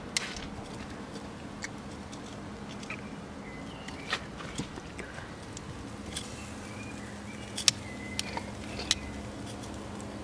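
Metal barbecue tongs clicking against the wire grate of a charcoal grill as pieces of meat are picked up and turned, a handful of sharp clicks spread through, over a steady faint hiss.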